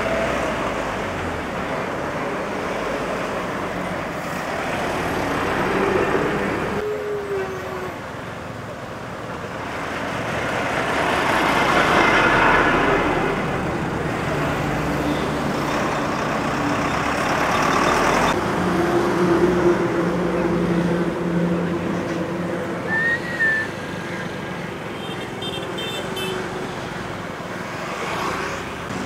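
Road traffic of cars and trucks passing and slowing, engine and tyre noise swelling as vehicles go by, loudest about twelve seconds in.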